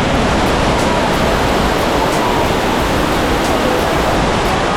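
Dunn's River Falls' cascades rushing: a loud, steady roar of falling water.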